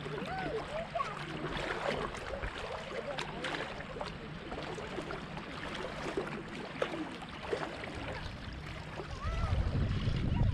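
Shallow lake water lapping and splashing close to the microphone, with faint distant voices. A low rumble comes in about nine seconds in.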